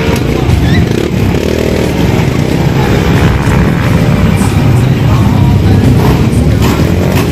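Several motorcycles riding past one after another at low speed, their engines running loudly and revving, the pitch rising and falling as each goes by.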